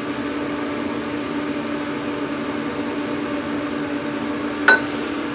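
Steady mechanical hum of a fan, with one brief high sound about three-quarters of the way through.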